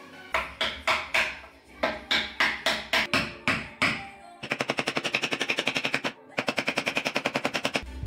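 A hammer striking a fitting at the hub of a wooden spinning wheel: separate sharp blows, about two or three a second, then a fast even run of taps, about eight a second, broken once briefly.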